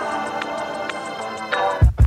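Background music: sustained electronic chords with a light tick about twice a second, replaced near the end by a different track with a heavy bass beat.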